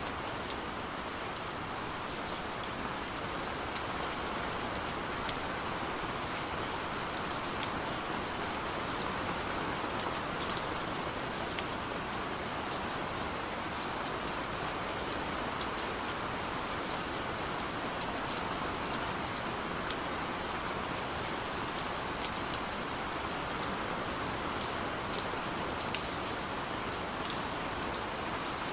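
Steady gentle rain falling, an even hiss with scattered sharp drop ticks.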